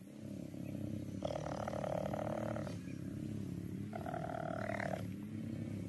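Cheetah purring: a steady low rumble that swells in three stretches of a second or so with its breaths.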